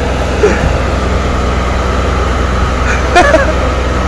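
Heavy machinery's engine running with a steady low drone, with a man's short shouts about half a second in and again around three seconds in.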